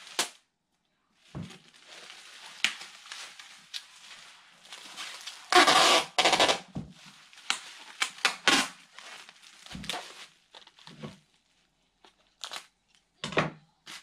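Bubble wrap and a plastic mailer bag crinkling and crackling as an item is wrapped and bagged, with sharp snaps throughout. Loud rips of packing tape are pulled off the roll around the middle.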